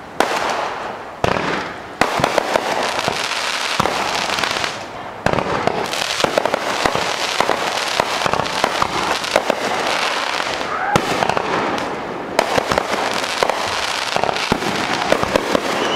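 Aerial fireworks bursting: a few sharp bangs in the first seconds, then a dense, continuous crackling of many small bursts.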